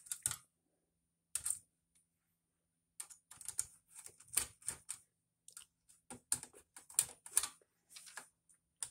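Irregular run of quick clicks and clatters from hands working on a desktop computer, in bunches with short pauses.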